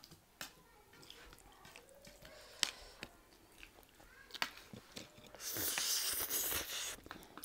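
Close-up eating sounds: chewing, with a few sharp clicks of forks against plates. Near the end comes a loud slurp of chowmein noodles lasting about a second and a half.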